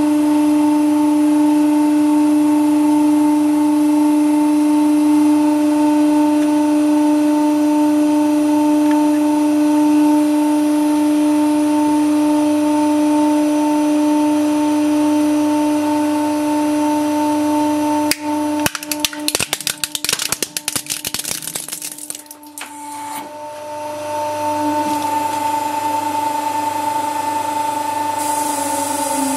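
The 100-ton hydraulic press's pump hums steadily. About 18 seconds in, a plastic toy monster truck gives way under the ram with a rapid run of cracks and snaps lasting about four seconds. The pump's hum then resumes.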